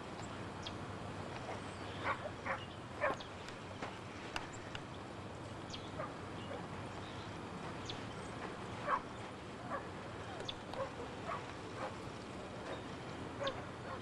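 Faint dog barks in short runs, three in quick succession about two seconds in and several more scattered later, over a low steady hum.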